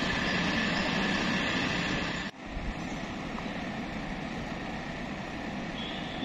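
Steady airport jet noise heard from inside the terminal: a hum with a thin high whine while the Embraer E190 taxis in, cutting off abruptly about two seconds in to a quieter steady hum.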